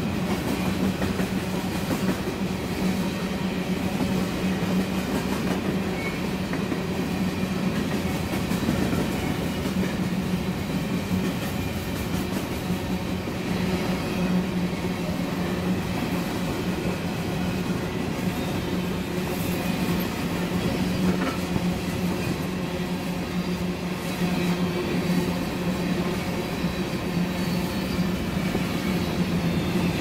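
Empty covered grain hopper cars of a long freight train rolling steadily past, steel wheels clattering over the rails with a constant low drone.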